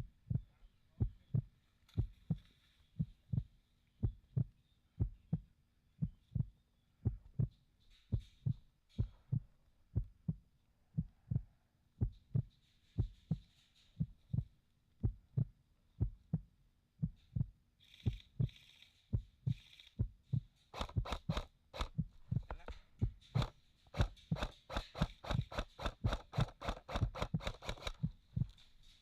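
Regular low thuds about two a second, with a quicker run of sharp clicks and rustling in the last several seconds.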